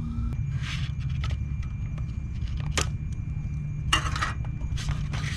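Long spoon scraping and rustling inside a freeze-dried meal pouch, in several short scrapes with a sharp click in between, over a steady low rumble.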